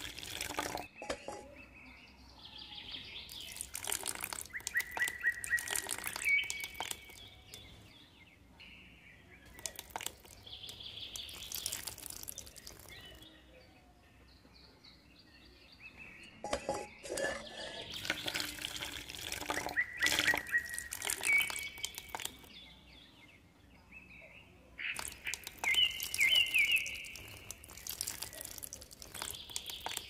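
Birds chirping in short calls several times, with scattered clicks and scrapes.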